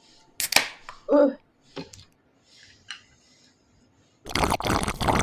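Close-up eating sounds of spicy instant ramen noodles. There is a short sharp slurp, a brief hum from the eater, and a few small chewing clicks, then a loud fluttering slurp of noodles lasting about a second near the end.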